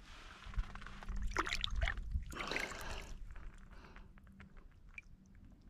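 Shallow lake water sloshing softly around the hands as a bass is lowered into it and let go, strongest in the first half, then dying down.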